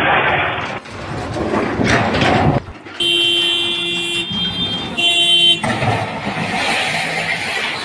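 Vehicle and engine noise, with a vehicle horn sounding twice: a steady blast of about a second, then a shorter one.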